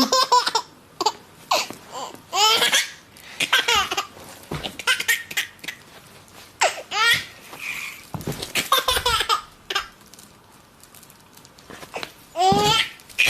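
Baby boy laughing hysterically in a string of short high-pitched bursts, with brief pauses between the fits.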